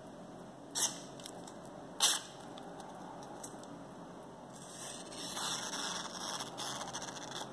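An SRM 255L-GK folding knife's blade slicing through a sheet of printer paper: two short cuts about one and two seconds in, then a longer stretch of slicing and paper rustle over the last few seconds. This is the paper test of the factory edge, which cuts cleanly: a sharp blade.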